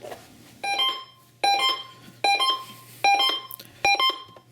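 Broadcast emergency alert tone: short two-note electronic beeps repeating about once every 0.8 seconds, five in a row. They lead into a radio AMBER Alert.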